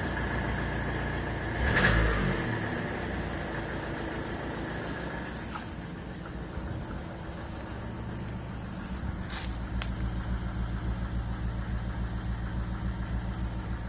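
Renault Scénic 1.6 dCi four-cylinder diesel running at idle with a ticking knock, which the owner puts down to a faulty injector. The engine briefly gets louder about two seconds in, and its note pulses rhythmically through the second half.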